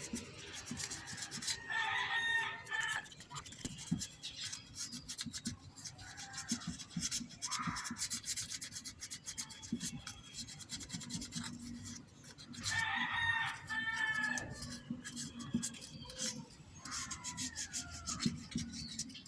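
Sandpaper rubbing in quick repeated strokes, scraping an electrical terminal clean of corrosion for a better contact. A rooster crows twice, about two seconds in and again near the middle.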